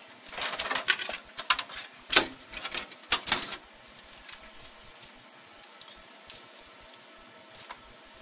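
A burst of clattering and clicking from hard objects being handled and set down, loudest in the first three or four seconds, followed by a few faint ticks.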